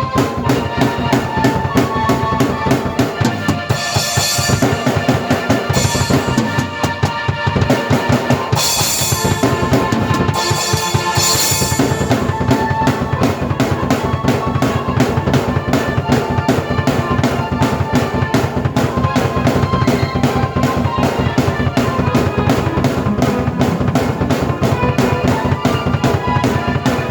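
Drum kit and keyboard played together by one player: a fast, dense drum pattern of kick and snare strokes under sustained keyboard tones, with cymbal crashes washing in about four seconds in and again from about nine to twelve seconds in.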